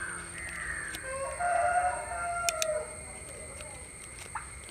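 A rooster crowing once, a long crow of about three seconds that falls in pitch at the end.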